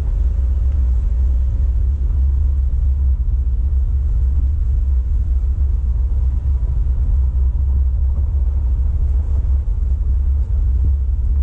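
Vehicle driving slowly on a gravel road, heard from inside the cabin: a loud, steady low rumble of engine and tyres on gravel.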